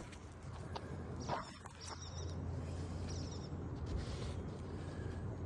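A small bird chirping in a few short high trills, about a second and a half in and again near the middle, over a steady low hum, with a couple of faint knocks.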